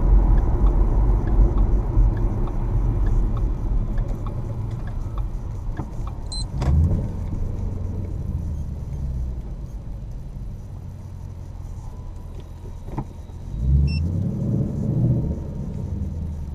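2018 Mustang GT's 5.0 V8 running through a Roush axle-back exhaust with its resonators still fitted, heard from inside the car with road noise. It is loudest at first while driving, eases off as the car slows, and swells briefly again near the end.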